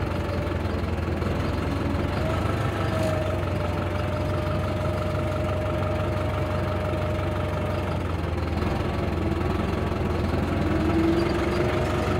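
Farm tractor's diesel engine running steadily as it drives along the road, a low even drone with a steady whine over it that drops lower near the end.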